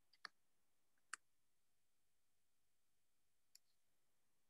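Near silence broken by a few short faint clicks: two clearer ones about a quarter second and a second in, and a fainter one later.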